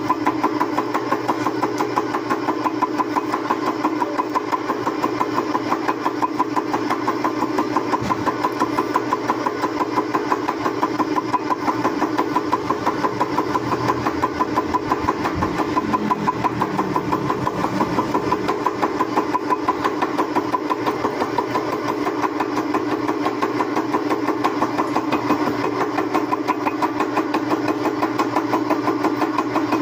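Metal lathe running steadily, a constant mechanical hum with a fast, regular ticking through it.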